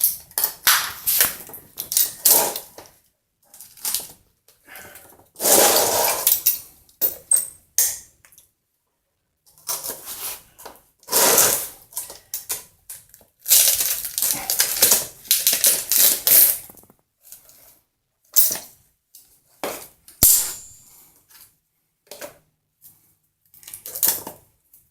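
Irregular clattering, clicking and scraping of hard objects being handled, in bursts of a second or two with short silent gaps between them.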